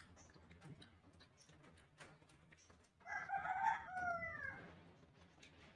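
A rooster crowing once, about three seconds in: a single crow of about a second and a half that drops in pitch at the end.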